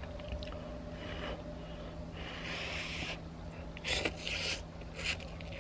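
A person slurping and sucking in a mouthful of noodles, with a hissy rush of air about halfway through and short wet slurps near the end, over a steady low hum.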